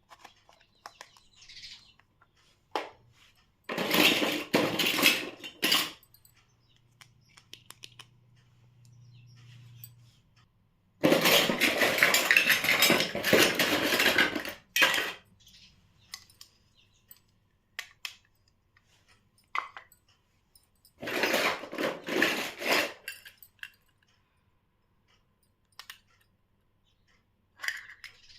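Small plastic toy kitchen pieces being handled and clattering together in three bursts of a few seconds each, with scattered light clicks in between.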